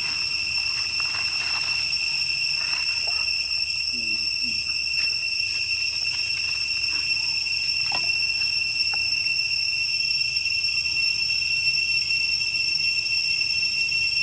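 Steady high-pitched drone of insects, likely a cicada chorus, holding one unwavering tone throughout, with a few faint clicks and a brief low glide about four seconds in.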